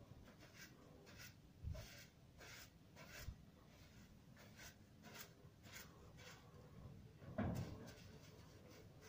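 Faint, repeated short scraping strokes, a couple a second, with a few soft dull knocks; the loudest knock comes about seven seconds in.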